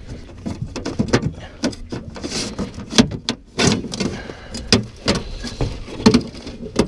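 Handling noise in a boat: rustling of clothing and gear with a string of irregular short knocks and clicks.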